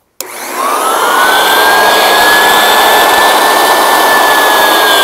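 Floor edger sander switched on with a click; its motor whine climbs over the first second, then runs steady and loud with the pad grinding against a board, and starts to sink slightly near the end. This is a test run to show which rings of its freshly dust-powdered rubber pad are making contact.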